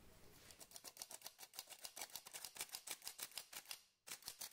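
Mesh sieve being shaken over a glass bowl to sift cake flour, giving a fast, even ticking of about nine strokes a second, with a short break near the end.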